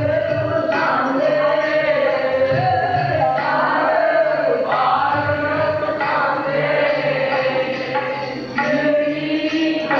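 Sikh kirtan: men's voices singing a hymn together to a harmonium, with tabla drums keeping the rhythm.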